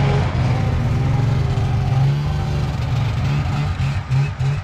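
Snowmobile engine running steadily, its low note wavering and pulsing briefly near the end.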